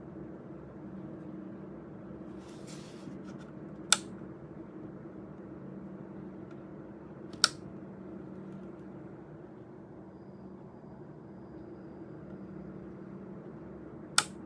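Steady low hum of hard drives spinning in a Sabrent EC-HD2B dual-bay docking station, broken by three sharp clicks: about four seconds in, about seven and a half seconds in, and near the end.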